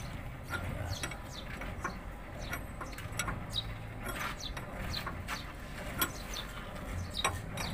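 Scattered light metallic clicks and scrapes of an open-end wrench working the tie-rod end lock nut on a Mitsubishi L300's front steering, loosened to adjust the toe. Short high chirps sound here and there.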